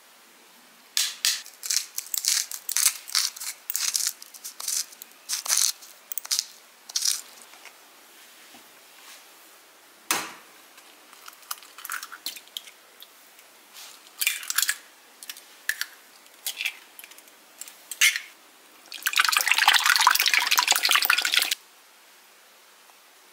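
Kitchen prep sounds: short bursts of crackling grinding from a pepper mill seasoning raw oysters, then an egg cracked against a glass bowl about ten seconds in, then eggs beaten fast in the glass bowl for two or three seconds near the end, the loudest part.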